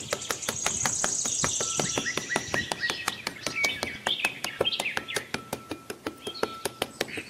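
Birds chirping, with a high trill in the first couple of seconds, over a fast, fairly even run of sharp clicks.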